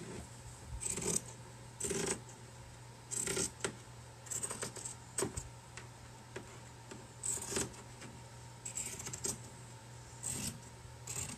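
Scissors snipping through canvas fabric: a string of short cuts at irregular intervals, often two in quick succession, with pauses between them.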